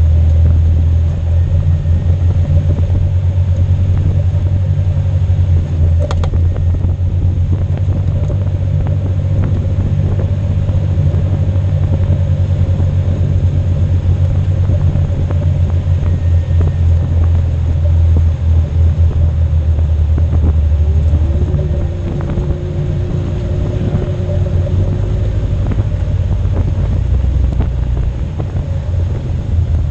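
Jeep Cherokee's engine running steadily as the Jeep drives across soft beach sand, a deep rumble heard from just over the hood. It eases slightly about twenty-two seconds in.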